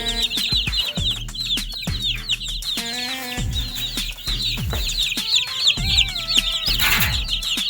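A flock of broiler chickens calling nonstop in many short, high-pitched peeps that overlap one another.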